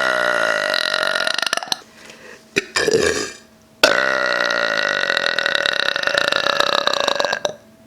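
A woman belching on swallowed air, with no drink taken: a long drawn-out belch that ends about two seconds in, a brief shorter sound, then a second, longer belch of about three and a half seconds held at a steady pitch that sags slightly near its end.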